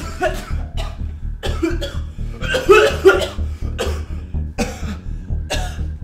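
A man coughing and sputtering in a string of short fits, choking on water that has been poured over his head. Background music with a pulsing low beat runs underneath.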